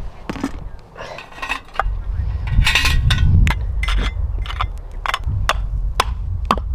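Metal camp cooking pot and lid clinking and clattering on a small camp stove: about a dozen sharp, separate clinks and taps.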